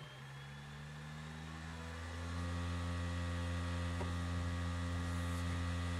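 Mac spinning up as it boots: a whirring mechanical hum of steady tones that swells over the first two seconds or so and then holds level.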